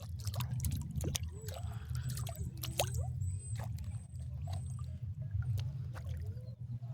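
Water dripping and trickling, with small wet clicks and squishes, over a steady low rumble.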